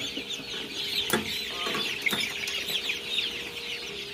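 A crowd of young chicks peeping non-stop, a dense chorus of short, high, falling cheeps, during beak trimming. Under it runs a steady low hum, with a couple of sharp clicks about one and two seconds in.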